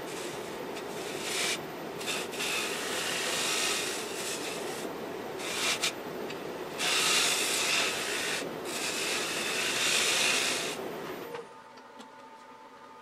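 Gouge cutting the inside of a green (wet) butternut bowl spinning on a woodturning lathe: a steady rushing hiss of shavings peeling off, louder in two stretches in the second half. The cut stops about eleven seconds in.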